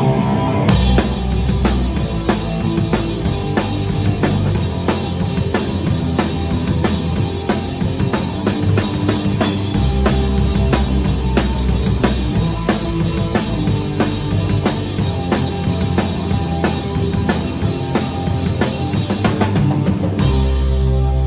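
Live rock band playing a fast, loud song, driven by a drum kit with steady, evenly spaced bass drum and snare hits over bass and guitar.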